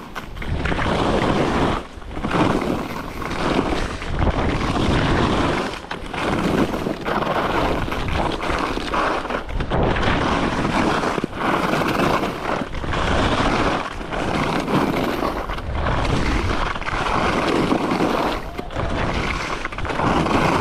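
Skis carving down a snowy piste, the edges scraping the snow in a swell with each turn about every one and a half to two seconds. Wind rushes steadily over the microphone.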